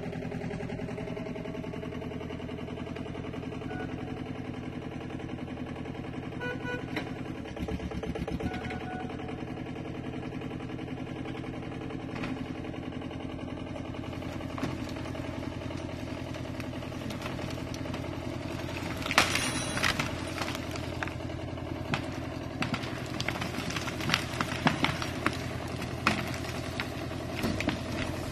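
An engine running steadily at a constant speed, joined about two-thirds of the way in by a loud knock and then a series of sharp knocks and clatter.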